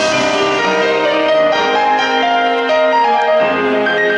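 Instrumental music played over the venue's sound system: sustained keyboard notes and chords, without vocals, as a song's intro.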